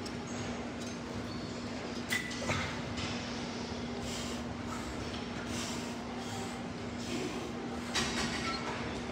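Seated cable row machine in use: metal clinks and rattles from the handle and cable hardware as it is pulled and let back, over a steady low hum. The sharpest clinks come about two seconds in and again near the end.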